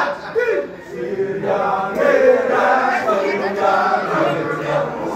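A group of men chanting and singing together in a Balinese kecak-style circle chant, with sustained voiced tones that dip briefly about a second in and then swell again.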